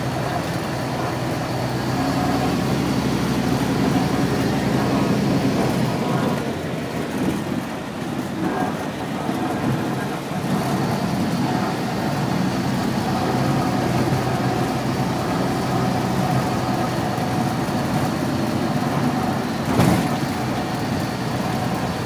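Sanitation salt spreader truck running steadily while plowing snow, heard from inside the cab as a constant low drone, with one sharp knock near the end.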